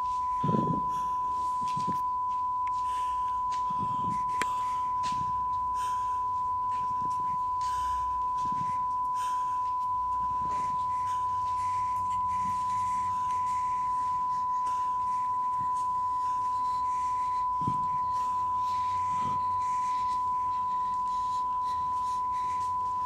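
A steady, pure high-pitched electronic tone held unbroken throughout, with a few faint dull thumps beneath it.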